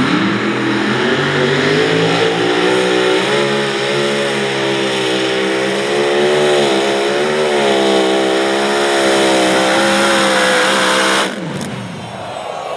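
Mini modified pulling tractor's engine running loud at high revs through a pull, its pitch holding nearly steady with slight wavering. It cuts off abruptly about eleven seconds in.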